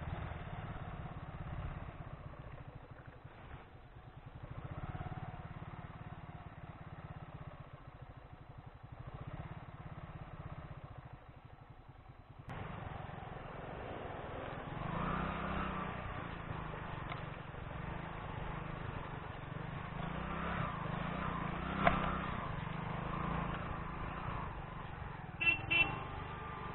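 Motorcycle engine running while the bike is ridden, with an abrupt change about halfway through, after which it is louder. A sharp click comes about three-quarters of the way in, and a couple of short knocks come near the end.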